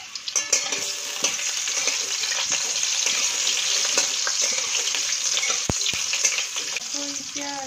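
Potatoes frying in hot oil in a pan, a steady sizzle with crackling that swells up about half a second in as they go into the oil. A single sharp knock comes about three-quarters of the way through.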